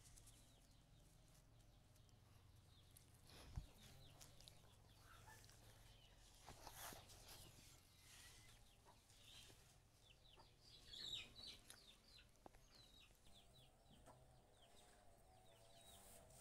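Faint background bird calls, short high chirps scattered over near quiet, with one sharp knock about three and a half seconds in.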